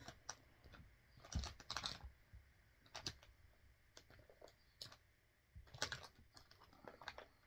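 Faint, scattered clicks and taps of small makeup items being moved about during a search for an eyebrow pen.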